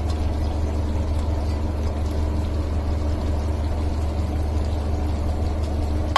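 Steady low mechanical hum, like a motor running, with an even level throughout.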